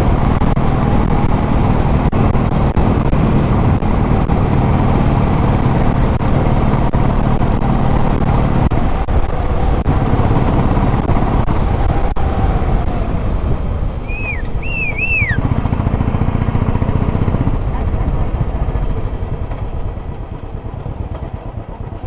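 Royal Enfield Bullet single-cylinder engine running under way while riding, with road and wind noise. The engine note drops off about nine seconds in, comes back briefly around sixteen seconds, then eases as the bike slows near the end. A few short high chirps come about two-thirds of the way through.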